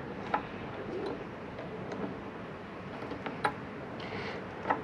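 A knife blade cutting and scraping at the rubber insulation of a thick electrical cable, with scattered small clicks and a few sharper ticks as the blade and metal lug catch.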